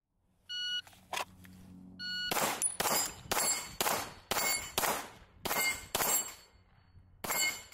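A 9mm Staccato XL pistol firing about nine shots, most about half a second apart, with a pause before the last, each with an echoing tail. The shots are preceded by two short metallic rings, and a metallic ring carries through several of the shots.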